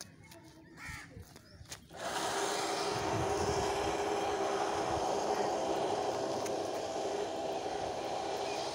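A loud, steady mechanical drone with a low hum in it, starting abruptly about two seconds in.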